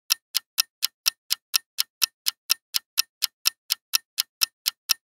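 Clock-tick countdown timer sound effect: short, evenly spaced ticks, about four a second.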